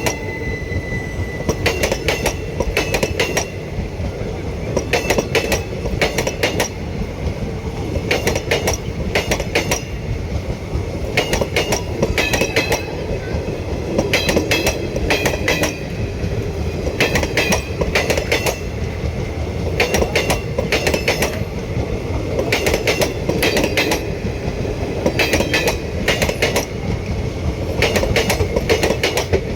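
Passenger train coaches rolling past at low speed. The wheels clatter over rail joints in groups of clicks about every three seconds, over a steady rolling rumble.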